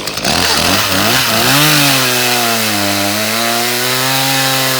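Ported Echo CS-310 chainsaw throttled up from idle to high revs and cutting through a log, the engine pitch sagging slightly under the load of the cut before rising again.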